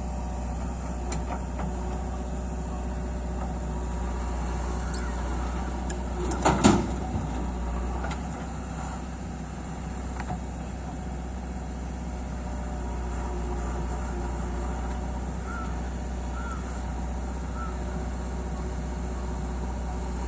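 JCB backhoe loader's diesel engine running steadily while digging, with a loud clank about six and a half seconds in.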